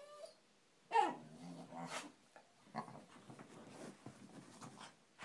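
Wheaten terrier giving a short grumbling growl about a second in that drops in pitch, then scratching and digging at fabric couch cushions with its paws in short irregular scuffs.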